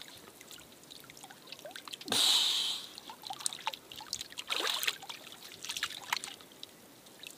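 Seawater dripping and trickling at the side of a small wooden boat, with a louder splash about two seconds in and another near five seconds, among scattered small drips and knocks.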